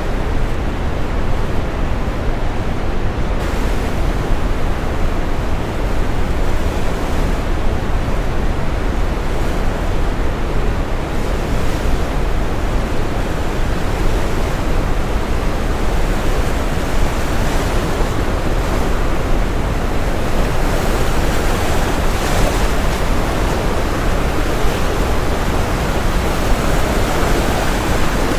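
Steady brown noise mixed with ocean surf; the hiss of the breaking waves swells in the second half.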